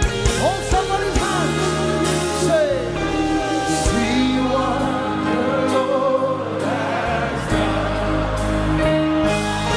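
Live gospel praise music: voices singing together over instrumental backing with sustained chords and a steady bass.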